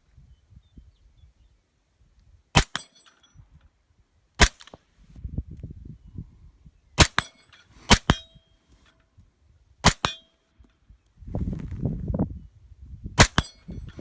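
Six single shots from a suppressed AR-15 in .223 with a SilencerCo Saker suppressor, fired at uneven intervals. A couple of the shots are followed by a brief metallic ring from a steel gong target being hit. Between some shots there are stretches of low rumbling noise.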